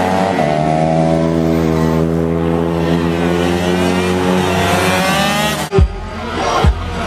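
Engines of small racing motorcycles revving through a corner, several engine notes overlapping and rising and falling with the throttle. Near the end the engines sound fainter and a few low thumps break in.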